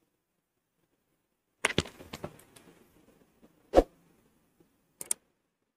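Handling noise from KDM Eco 165 neckband earphones being picked up and an earbud put into the ear: a cluster of clicks and scuffs about a second and a half in, one loud short thump just under four seconds in, and two quick clicks near the end.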